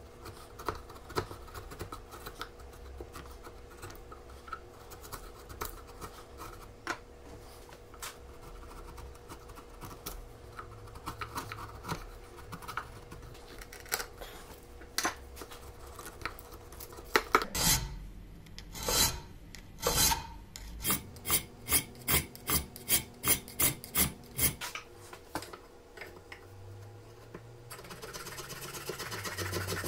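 A chisel paring wood in a beech plane body: scattered light cuts and scrapes. A little past halfway it gives way to a run of loud, even file strokes, about two a second, which stop shortly before the end.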